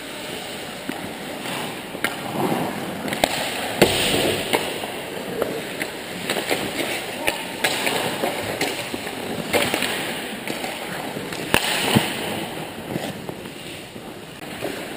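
Ice hockey play heard on the rink: skate blades scraping and carving the ice, with scattered sharp clacks of sticks and puck, the loudest a few seconds in and again near the end.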